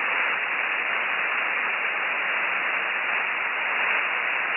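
Steady hiss of a ham radio receiver with no signal on the channel, cut off above about 3 kHz by its single-sideband filter.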